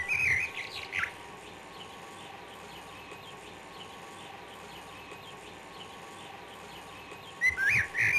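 Birds singing: a loud phrase of quick whistled notes sliding up and down at the start and again near the end, with a faint chorus of small chirps in between.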